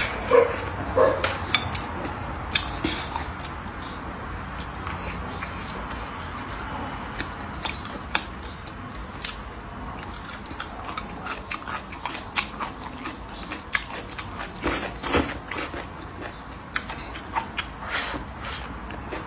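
Close-up eating: chewing and crunching of braised pork, rice and raw green onion, a dense run of small crisp clicks. Two short pitched cries come near the start.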